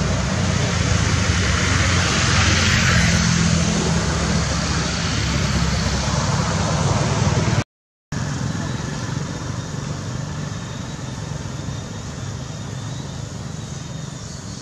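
A motor vehicle engine running nearby over a steady outdoor background, swelling about two to three seconds in. The sound cuts out for a moment near the middle, then carries on as a quieter, steady background hiss.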